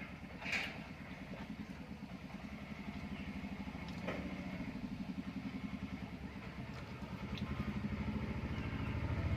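A small engine running with a steady, fast low pulse, growing louder near the end.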